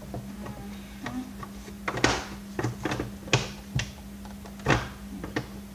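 Irregular sharp clicks and knocks from a vacuum cleaner's parts being worked at by hand while its wheel is pried off, about six in a few seconds, over a steady low hum.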